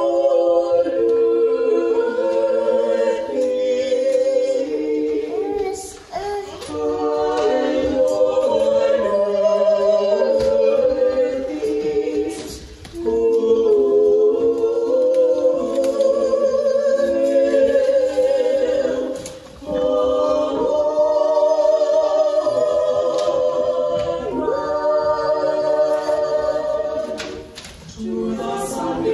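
A small mixed choir of women's and men's voices singing Orthodox liturgical chant a cappella in harmony. The chant comes in long phrases, with a brief pause for breath between them about four times.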